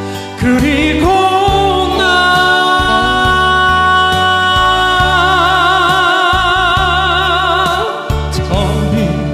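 A male voice sings one long, high note with vibrato over band backing music with a steady beat. The note rises into place in the first second or so and is held until about eight seconds in, with the vibrato widening about halfway through.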